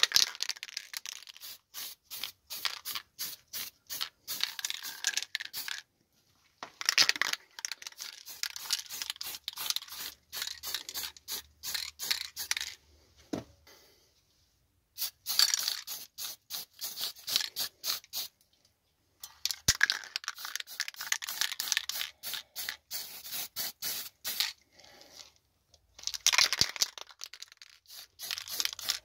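Fast back-and-forth hand scraping on an engine part, about four strokes a second, in runs of several seconds broken by short pauses.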